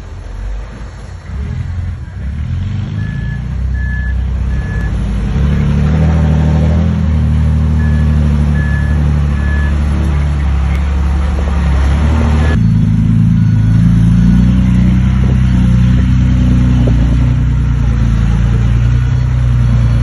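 Heavy diesel construction machinery running, its engine note building up over the first few seconds. A reversing alarm sounds two runs of three beeps in the first half. About two-thirds of the way through, the engine sound changes abruptly to a different steady drone.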